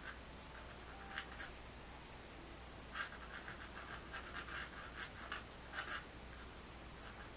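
Faint scratching of a pencil sketching on canvas: a few separate strokes, then a quick run of short strokes in the middle.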